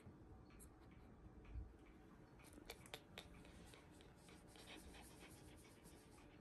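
Near silence: faint rustling of a hand on a Shiba Inu's fur, with a soft low thump about one and a half seconds in and a few small clicks about a second later.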